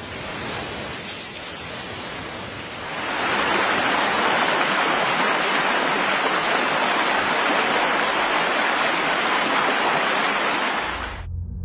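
Steady hiss of water, heavy rain or rushing floodwater. It grows louder about three seconds in and cuts off abruptly near the end.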